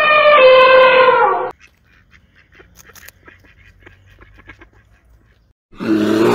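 A bird's loud honking call lasting about a second and a half, then faint scattered clicks, and near the end a loud rough animal call begins.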